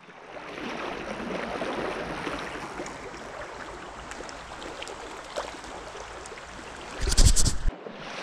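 Stream water flowing steadily over a riffle, an even rushing. About seven seconds in, a brief loud rumbling bump cuts across it for under a second.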